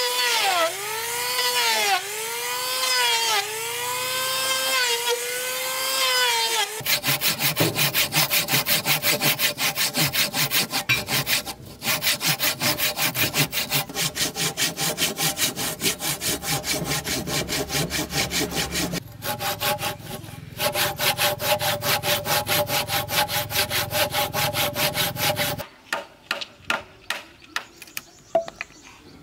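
Saw cutting through wood. For the first few seconds the blade rings with a pitch that dips and rises about once a second. About 7 s in it changes to a fast, even rasping, broken twice by brief pauses. It ends in a few seconds of light clicks.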